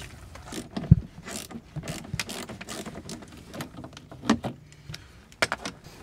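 Scattered knocks, clicks and rustles of hands working in a UAZ Bukhanka van's cabin as the battery is got at: a dull thump about a second in and a few sharp clicks later on.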